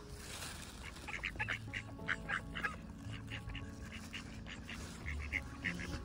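Mallard ducks calling in a long run of short, rapid quacks.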